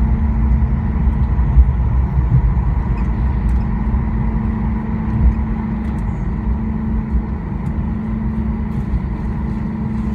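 Cabin noise inside a Boeing 737-800 rolling out on the runway after touchdown: a heavy low rumble from the wheels and engines with a steady hum, slowly easing as the aircraft slows.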